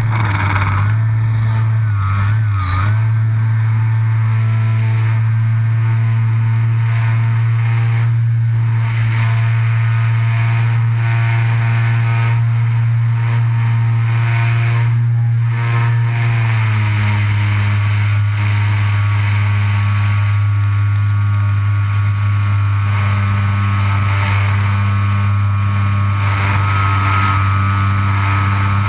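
Electric motor and propeller of a Parkzone Bf 109 radio-control plane running at high throttle, heard from a camera on the airframe, with rushing air. It makes a steady, loud buzzing drone that wavers briefly about two seconds in and drops slightly in pitch at around sixteen seconds.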